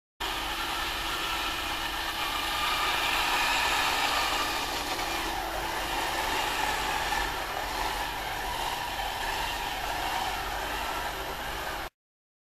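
Small four-wheeled electric robot's drive motors and gearing whirring as it drives over a concrete floor, the pitch dipping and then rising again about halfway through as it changes speed. The sound cuts in and out abruptly.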